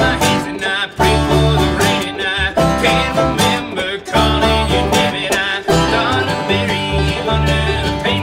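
Bluegrass band playing live: banjo, mandolin and acoustic guitar picking over upright bass.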